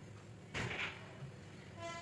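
A kitchen knife and sweet potato scraping briefly across a wooden cutting board, a soft rasp lasting about half a second, starting about half a second in.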